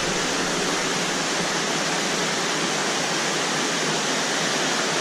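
Underground river inside a cave, fast water rushing loudly and steadily without a break.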